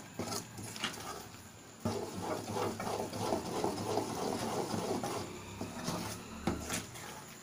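A ladle stirring thick Mysore pak batter of gram flour and sugar syrup in a metal pan on the stove, making a dense, churning sound that is strongest in the middle few seconds. A few sharp knocks of the ladle against the pan come near the start.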